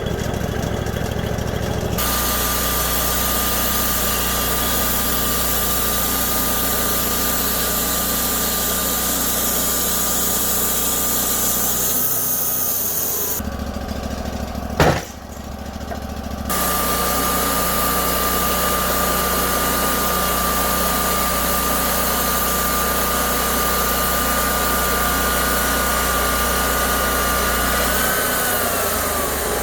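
Gasoline-powered saw running under load through wood, its pitch held steady during each cut, then rising and falling as the cut ends, twice, with an abrupt break and a sharp click between the two runs.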